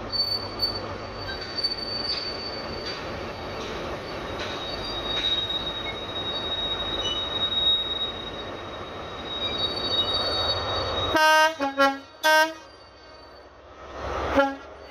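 A train running through the station with a steady high-pitched wheel squeal over the rumble of the wheels. About eleven seconds in this stops abruptly, and a train horn sounds several short blasts.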